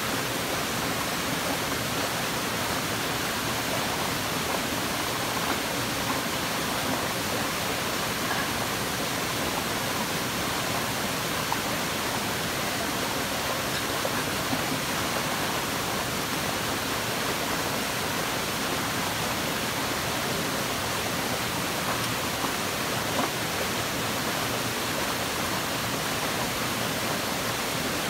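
Steady, even rush of a small rocky forest stream tumbling over rocks in a cascade.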